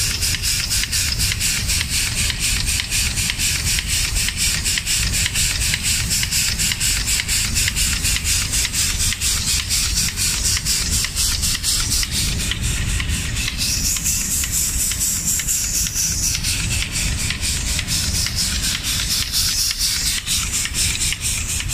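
Automatic cabinet-door painting line running, with a steady machine noise made of a low rumble and a hiss that pulses rapidly and evenly.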